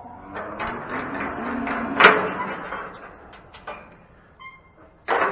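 Steel pipe livestock gate and latch rattling as it is worked, with a loud metallic clang about two seconds in and another near the end.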